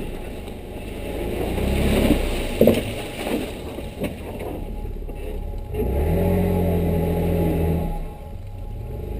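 Off-road vehicle engine driving on a muddy trail: it revs up over the first two seconds, with a couple of sharp knocks a little later, then holds a steady drone from about six seconds before easing off near eight seconds.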